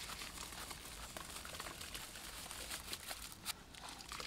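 Soaked rice grains pouring and pattering from a metal bowl into a pot of boiling water, a faint scatter of small clicks and crackles with one sharper click about three and a half seconds in.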